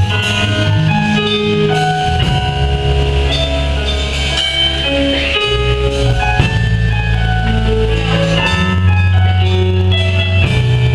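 A church youth ensemble playing a hymn of thanksgiving: guitars and a melody over deep, held bass notes that change every second or so.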